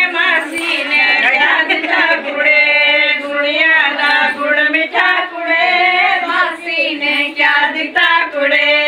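A group of women singing together in long held, gently bending notes.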